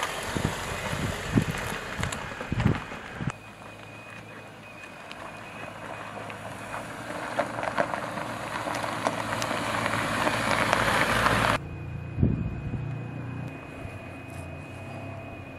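2019 Jeep Cherokee Trailhawk driving off-road, with wind on the microphone: low knocks of the tyres over rock at first, then tyre noise on a dirt track growing steadily louder as it approaches, which cuts off abruptly about three-quarters of the way through, leaving a quieter low hum and a single thump.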